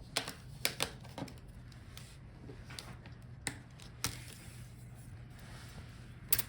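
Scattered light clicks and taps of a laptop's plastic display parts and tools being handled while the display assembly is taken apart, over a faint steady low hum.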